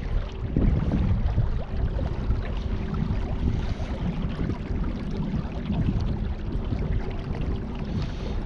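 Steady wind rumble on the microphone over water noise, with a faint steady hum underneath.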